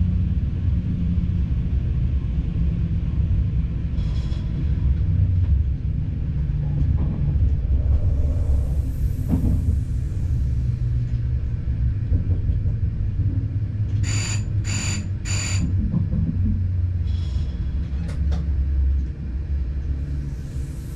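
Diesel train's low running rumble heard from the driver's cab, steady throughout. About two-thirds of the way in come three short high-pitched beeps from the cab.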